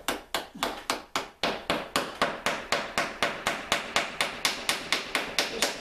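Hammer tapping nails steadily through cedar canoe planking, about four quick strikes a second. The nails are being clinched: each tap drives the nail tip against a backing on the inside of the hull, so it bends and turns back into the plank.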